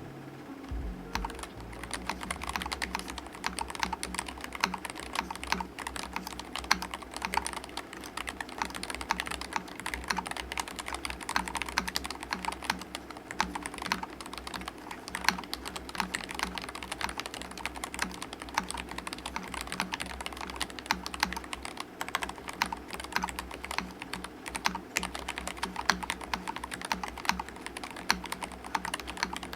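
Typing test on an RK N80 low-profile mechanical keyboard with linear RK Red switches and IXPE foam: fast, continuous key clacks with no pause.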